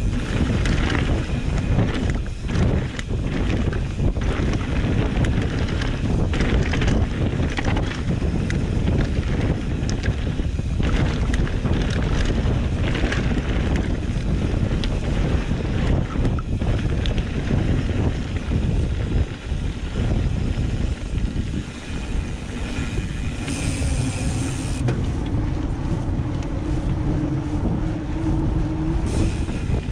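Steady wind rush and buffeting on the microphone of a camera moving at speed. In the last several seconds a faint tone rises slowly underneath it.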